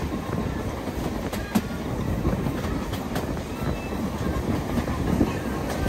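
Heritage railway train on the track: a steady low rumble with sharp clicks now and then, as of wheels running over rail joints.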